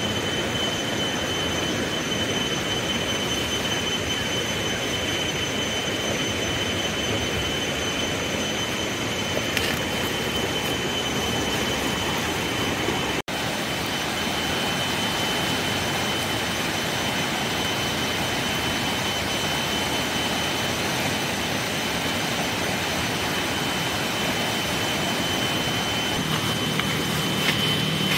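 Steady roar of a swollen, muddy river in flood rushing past, with a thin steady high whine over it and a split-second gap about halfway through.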